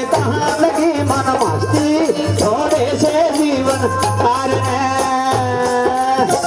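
Live Indian folk devotional music: a wavering melody line over a steady low drum beat from a dholak.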